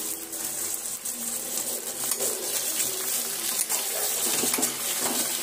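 Onions and tomato pieces frying in hot oil in an aluminium kadhai, a steady sizzle, stirred with a metal spatula that scrapes the pan now and then.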